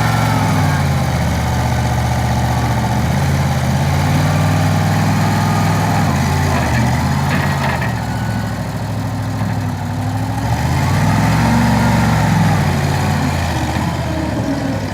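Skid steer loader's engine running steadily, its pitch shifting up and down a few times, with a higher whine that rises and falls above it twice.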